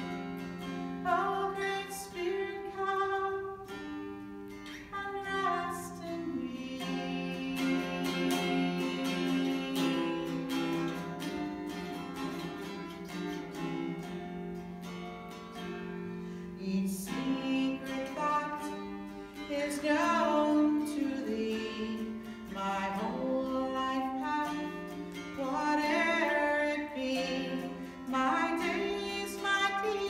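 Mountain dulcimer played solo, a melody picked out over steady held drone notes.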